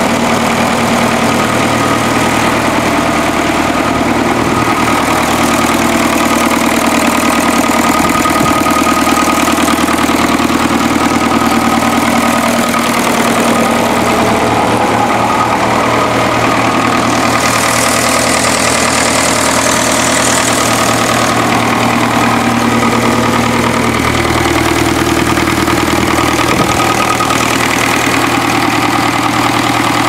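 Grey Fergie (Ferguson TE20) tractor engine idling steadily, running again after five years standing. Its tone shifts slightly about two-thirds of the way through.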